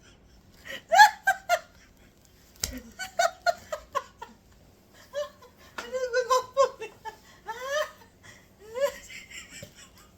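A person laughing hard and high-pitched, in several bursts of helpless laughter with short breaks between them.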